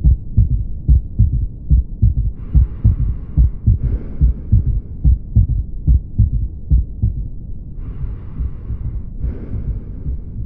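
Auscultated heartbeat with an S3 third heart sound (ventricular gallop): low thuds in repeating groups, with the extra sound falling just after S2. It comes from blood rushing into the left ventricle as the mitral valve opens. It can be normal in children, athletes and young adults, but points to cardiomyopathy, constrictive pericarditis, or aortic or mitral regurgitation. Two stretches of soft hiss come in over the beats.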